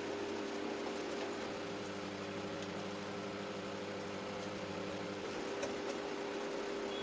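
Steady hum of a small motor running at constant speed, with an even hiss.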